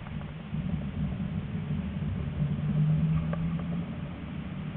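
Tram running along its rails, heard from inside: a steady low hum of motor and wheels, with a low steady tone coming up for about a second midway and a few faint ticks.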